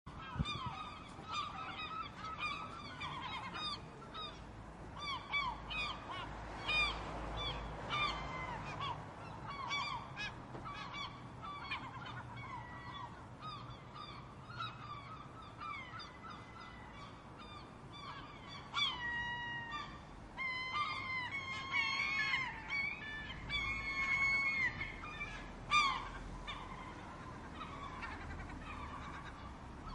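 A flock of gulls calling: many short overlapping cries and yelps, busier and louder in the second half, over a low steady background rumble.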